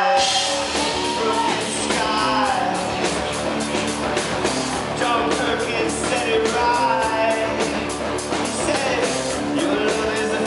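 Rock band playing live, with a steady drum beat, electric guitar and a lead singer.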